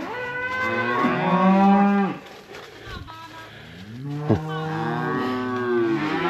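Cattle mooing: two long, loud moos, the first in the opening two seconds and the second starting a little under four seconds in, with a sharp knock just after the second begins. Typical of a cow bawling after the calf she is being separated from.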